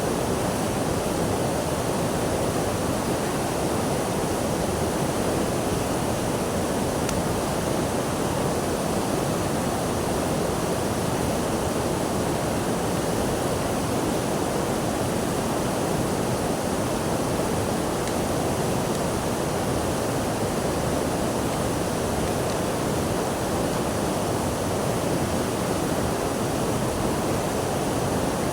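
Running water making a steady, unbroken rushing sound with no distinct splashes or changes.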